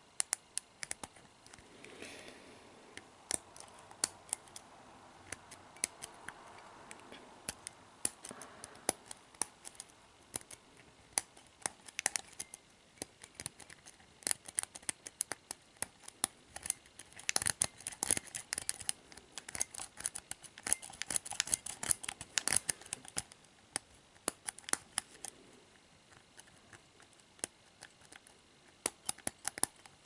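Lock picking on an ERA discus padlock's four-pin core: a steel pick working the pins under a tension wrench, heard as a run of small, irregular metallic clicks and scratches, densest and loudest a little past halfway. The picker suspects the pins are serrated.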